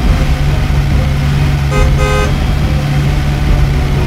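Car engine sound effect running as a steady low drone, with a car horn honking twice in quick succession about two seconds in.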